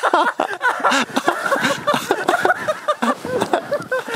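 People whooping, yelling and laughing in excitement, a run of rising and falling wordless shouts.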